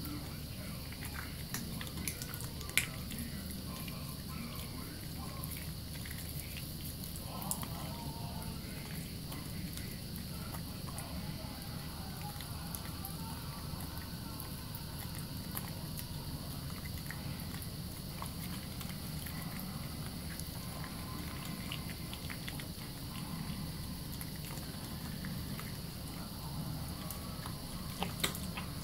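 Thin stream of tap water running steadily into a sink while wet hands rub and squish a bar of soap into lather, with a few sharp clicks.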